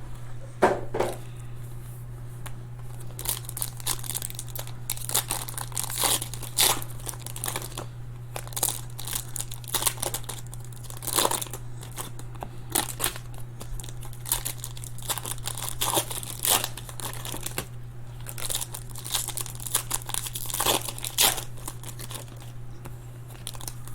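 Trading-card pack wrappers crinkling and tearing as card packs are opened and handled, in irregular crackles, over a steady low hum.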